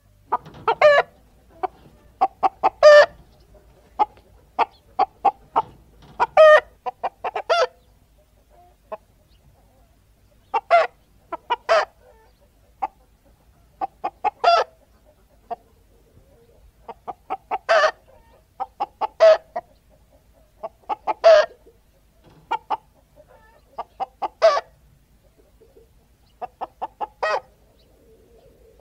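A chicken clucking in quick runs of short clucks, broken every two to three seconds by a loud squawk.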